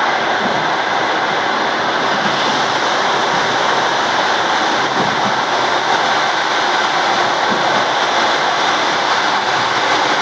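ED4M electric multiple unit running at speed, heard from on board: a loud, steady rush of wheel-on-rail and running noise with no clear rhythm of rail joints.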